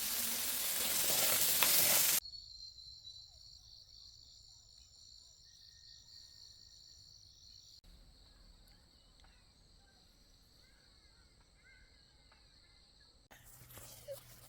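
A loud rushing hiss for about two seconds cuts off abruptly to a quiet outdoor background of steady, high-pitched insect buzzing, with faint short chirps in the second half. A rustling noise returns near the end.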